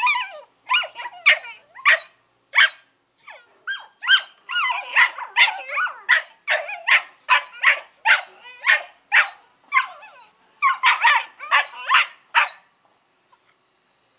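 Smooth collie puppies barking, yipping and whining at each other in rough play, a rapid string of short high calls that bend up and down in pitch, breaking off about two seconds before the end.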